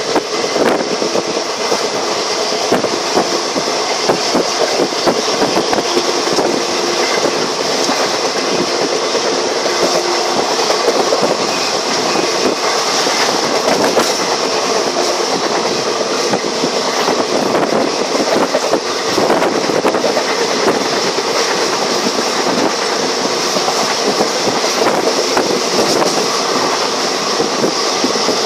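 Train running along the track, heard from aboard: a steady loud rush and rumble of wheels on rails, with rail-joint clickety-clack.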